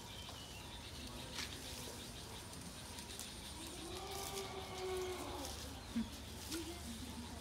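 An elephant calf giving one long call that rises and falls in pitch, about four seconds in, over a steady outdoor background.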